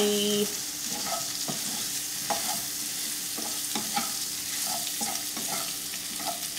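Food sizzling in a skillet on a gas burner while a utensil stirs it, with repeated soft taps and scrapes against the pan.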